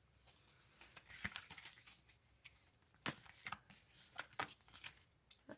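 A deck of oracle cards being shuffled and handled: faint, irregular card clicks and rustles, a few of them sharper.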